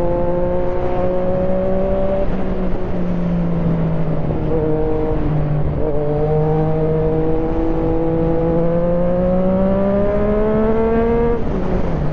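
Yamaha MT-09's three-cylinder engine heard through the rider's helmet microphone while riding. The revs climb slowly and drop sharply about two seconds in, dip twice more, then rise steadily for about five seconds before falling again near the end.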